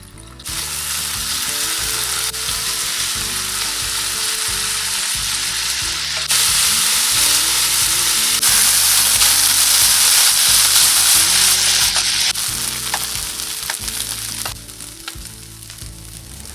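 Fried rice sizzling in a hot frying pan: a loud, steady frying hiss. It steps up suddenly partway through and falls away about two seconds before the end.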